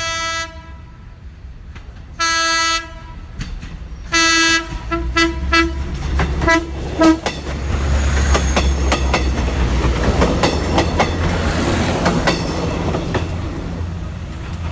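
A Philippine National Railways diesel multiple unit sounds its single-tone horn in three blasts, then a quick run of short toots, and passes with its wheels clacking over the rail joints.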